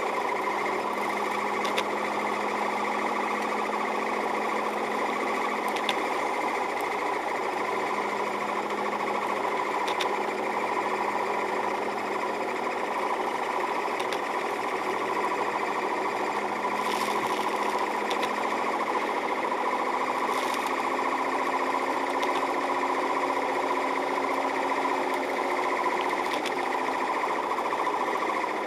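Steady in-cabin driving noise of a car on a snowy road: engine and road drone with a steady whine, and faint ticks about every four seconds.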